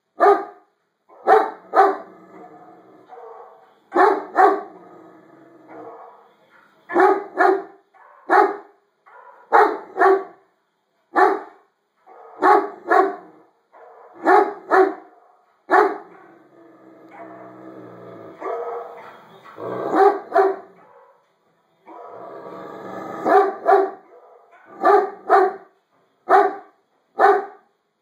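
Great Dane barking loudly in quick bursts of two or three, over and over, with quieter barking in the gaps between bursts.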